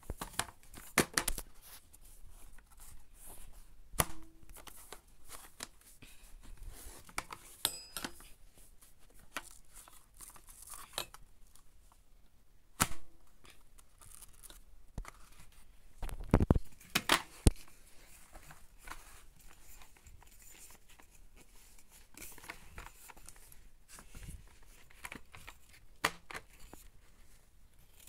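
Scattered clicks, knocks and rustles of the Numatic NRV 200 vacuum cleaner's plastic floor tool and hose being handled and turned over while the machine is switched off, with a louder cluster of knocks about halfway through.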